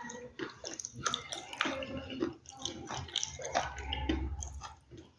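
Close-miked biting and chewing of a brittle, earthy material, heard as a dense run of irregular crunches and crackles.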